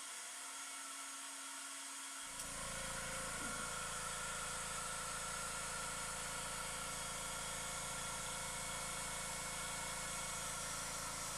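A power tool's motor running steadily with a high, even whine; a deeper hum joins about two seconds in and holds.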